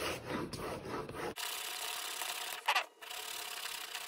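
Steel broadhead rubbed in quick back-and-forth strokes across 2000-grit sandpaper, a rhythmic scraping as the edge is polished with strokes pulled away from the edge. The strokes stop about a third of the way in, leaving a lighter hiss and one short, louder scrape.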